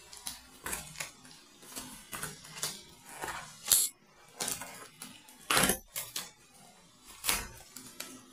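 Scissors snipping through packing tape and plastic wrap on a cardboard box, mixed with crinkling and scraping of cardboard and foam wrap as the box is opened. The sound comes as irregular short snips and crackles, with a few louder knocks a little after halfway and near the end.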